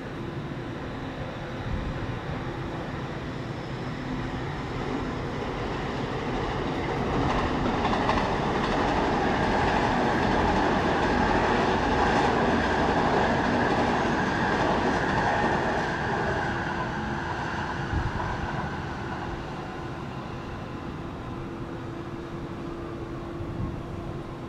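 A train passing by: the rail noise builds over several seconds, is loudest in the middle, then fades away.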